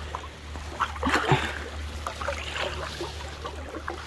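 Wooden canoe paddle strokes through calm water, with water trickling off the blade and one louder splash a little after a second in.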